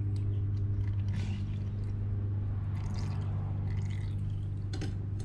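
Motorcycle engine oil trickling and dripping from the drain-plug hole into a plastic drain pan, with a few small splashes. A steady low machine hum runs underneath throughout.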